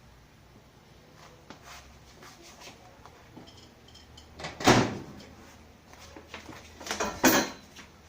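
Two loud clunks of a door being handled, about two and a half seconds apart, over a faint low hum that stops just before the second clunk.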